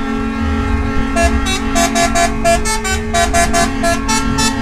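Truck telolet horns sounding in a telolet battle: rapid short toots at several different pitches in a quick, tune-like rhythm over a steady held horn tone, with low engine rumble underneath.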